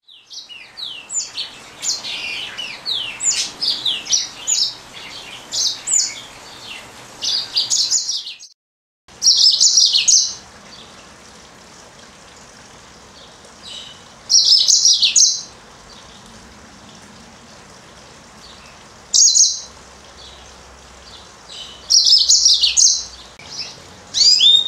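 Female yellow-fronted canary (green singing finch) singing: a fast, continuous run of high chirps and falling notes for about eight seconds. After a short break come separate bursts of song about every four to five seconds, with quiet in between.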